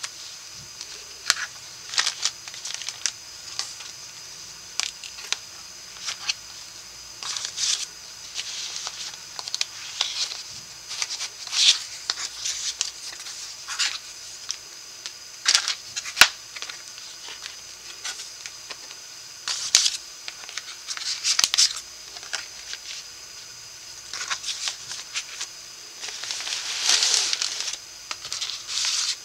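Cardstock and patterned paper being handled: scattered short rustles, scrapes and light taps as cards and tags slide in and out of the pockets of a handmade paper folio, with a longer sliding rustle near the end.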